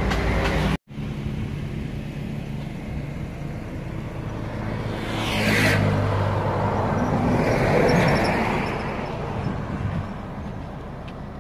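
Highway traffic passing: two vehicles swell past, about five and eight seconds in, the first with a short falling whoosh, over a steady road rumble.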